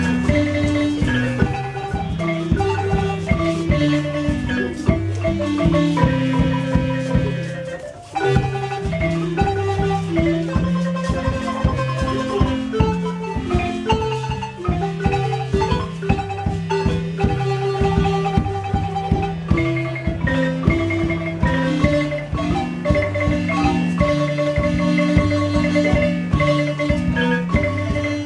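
Marimba music accompanying the dance: mallets playing held, rolled notes and chords over a bass line in a steady rhythm, with a brief break about eight seconds in.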